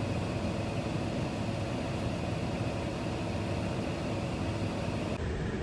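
Camper van's engine idling steadily, a low even rumble heard from inside the cab.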